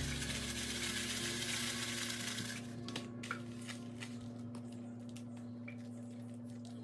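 Panko breadcrumbs rustling in a plastic tub as a salmon croquette is pressed and turned in them: a dry, even hiss for about two and a half seconds, then scattered light clicks and taps. A steady low hum runs underneath.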